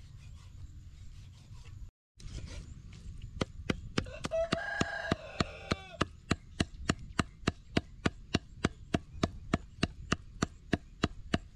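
Steel meat cleaver chopping pork on a wooden stump block, a steady run of sharp strikes at about three to four a second as the meat is minced. A rooster crows once about four to six seconds in.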